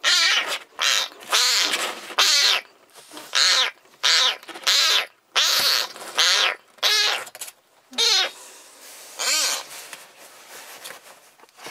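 Black-and-white kitten meowing loudly over and over, about a dozen short high cries in quick succession, thinning out and growing weaker after about eight seconds.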